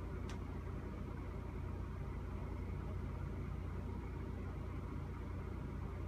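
Steady low rumble of an idling vehicle engine, with one brief click about a third of a second in.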